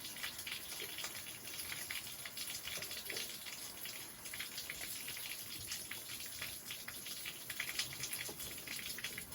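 Steady spattering hiss of water, with dense fine crackles.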